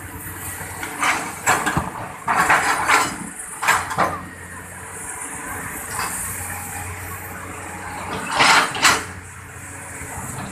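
Excavator engine running steadily, with several short, loud scraping and clattering bursts from the bucket digging into the earth bank.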